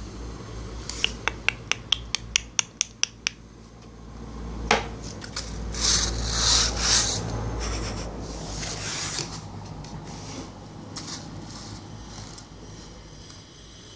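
Plastic hand brush's bristles scrubbing across a floor mat in a few strokes, loudest in the middle and fading to lighter rubs. It is preceded by a quick run of about ten light clicks and a single knock.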